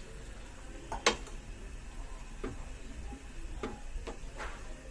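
Wooden spatula knocking against steel cookware while stirring a thick curry in a kadhai: one sharp click about a second in, then a few fainter taps spread over the next few seconds.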